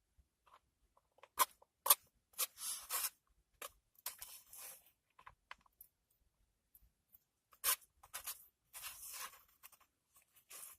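Close-up eating sounds as fried rice with ham is eaten: a few sharp clicks and short scraping, rustling bursts, separated by quiet gaps.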